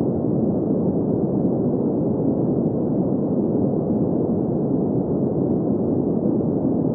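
Steady green noise for sleep: an even, muffled hiss centred in the low-middle range, with no highs, and unchanging throughout.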